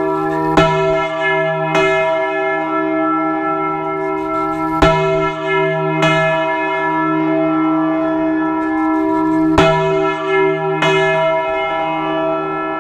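Large bronze church bell swung full circle on its yoke in the Spanish volteo style, its clapper striking in pairs about a second apart, three pairs in all, while the bell rings and hums on between strikes.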